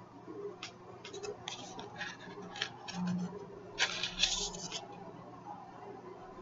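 Large tarot cards being leafed through by hand: stiff, smooth cardstock cards sliding and flicking against each other in short, scratchy rustles, with a denser run of rustling about four seconds in.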